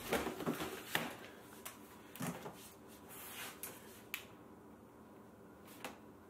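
A few soft knocks and clicks of a notebook and pen being handled on a small desk, the clearest about a second in and near the end, over a faint steady hum.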